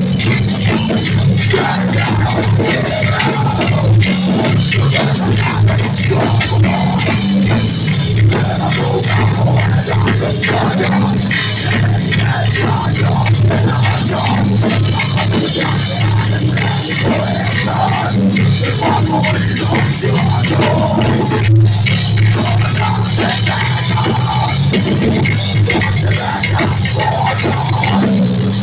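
A heavy rock band playing live and loud, with electric bass and drum kit, continuous with no break.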